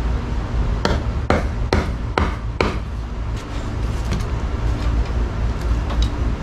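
Tanto knife blade being driven into a piece of wood: five sharp knocks about two a second, then a few faint taps.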